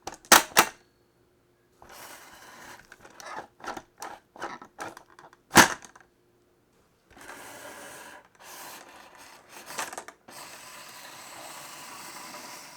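Glass marbles rolling along wooden marble-run tracks: stretches of steady rolling broken by sharp clicks and clacks as they drop onto the next slope and knock against the wood, with loud clacks about half a second in and again in the middle.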